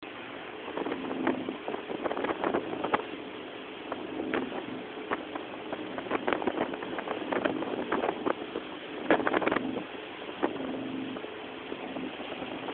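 Motorboat under way: a steady engine hum under rushing wind and water, broken by irregular thumps as the hull meets the waves.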